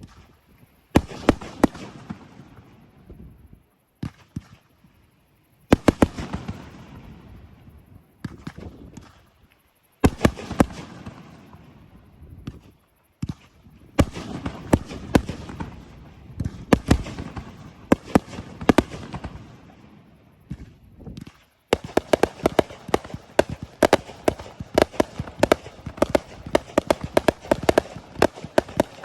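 Fireworks display: loud single bursts every few seconds, each trailing off in crackle. About three-quarters of the way through, a rapid, continuous string of cracks sets in.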